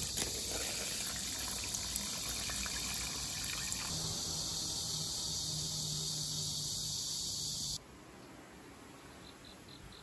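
Water poured in a steady stream into a plastic container of cut young radish greens and napa cabbage, filling it as the liquid for kimchi. The pouring stops abruptly about eight seconds in, and a few faint cricket chirps follow near the end.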